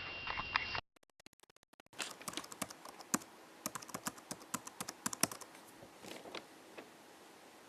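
Typing on a computer keyboard: irregular keystroke clicks, briefly interrupted about a second in, then thinning out near the end.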